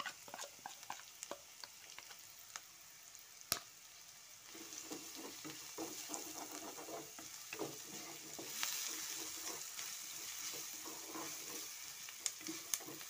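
Wooden slotted spatula stirring and scraping sauce-coated vegetables in a hot wok, with sizzling. Irregular scrapes and one sharp tap come first; the sizzling and stirring grow louder and steadier from about a third of the way in.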